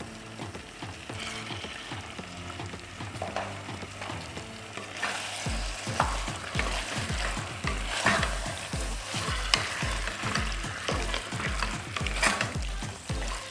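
Beef pieces frying in an onion-tomato masala in a pan, sizzling while a spoon stirs and scrapes them. The stirring gets busier and louder about five seconds in.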